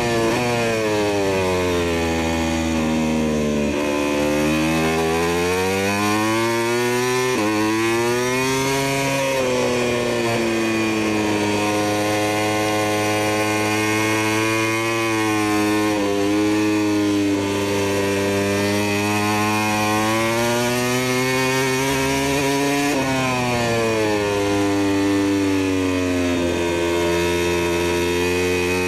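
Simulated big-bike engine sound effect, a motorcycle-like engine note that falls and rises in pitch. It drops suddenly a couple of times in the first eight seconds, like gear changes, holds a steady pitch through the middle, then dips and climbs again near the end.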